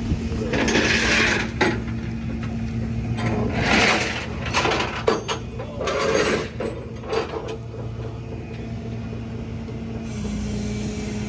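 Short clanks and rattles of the crumpled front-end parts of a wrecked car being handled, five or six bursts in the first seven seconds, over a steady low engine hum.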